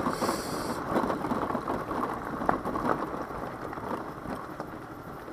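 Daelim Witty 100 scooter rolling down a rough, loose road: a dense crackle of tyres over grit and stones with the bike rattling, and a brief hiss at the start.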